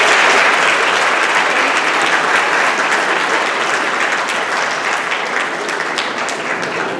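Audience applauding, loudest at the start and slowly tapering off.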